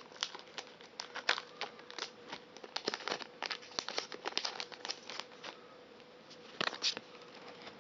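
Foil booster pack wrapper crinkling and trading cards being handled: an irregular run of light crinkles and sharp little clicks.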